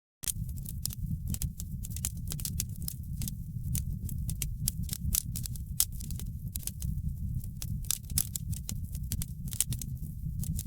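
Wood fire crackling in a fireplace: many sharp, irregular pops and snaps over a steady low rumble of the flames. The sound cuts back in after a brief dropout at the very start.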